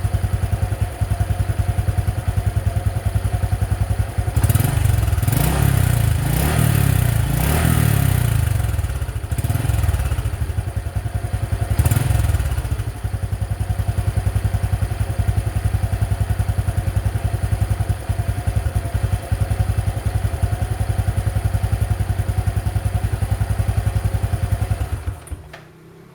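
Honda XRM 125's single-cylinder four-stroke engine through its stock exhaust, idling with a steady pulse, revved up several times in the first half, then idling again until it stops near the end.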